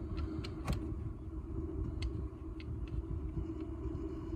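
Scattered light clicks and clinks of parts being handled in an engine bay, the sharpest about a second in, over a steady low rumble.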